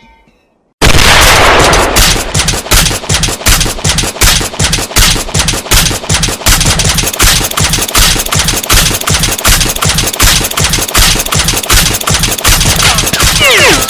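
Sustained automatic machine-gun fire that starts abruptly about a second in and keeps up as a rapid, steady stream of shots. Near the end, high whistles sweep downward in pitch over the firing.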